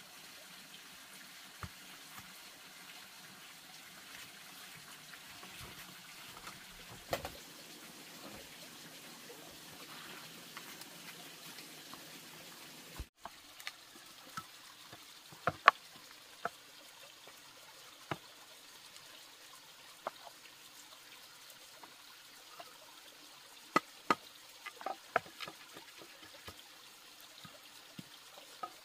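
Faint steady running or trickling water, with a brief break about halfway through. Scattered sharp clicks and knocks follow in the second half.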